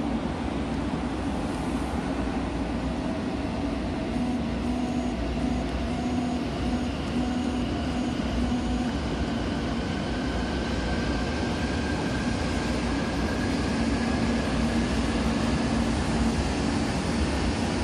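E2 series Shinkansen train pulling out and accelerating, its traction motors giving thin whining tones that rise slowly in pitch over the steady running noise of the train. It grows gradually louder.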